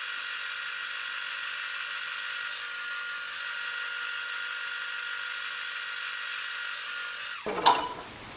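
Small wood lathe motor running at a steady speed with an even whine and hiss. It cuts off suddenly about seven seconds in and is followed by a sharp knock.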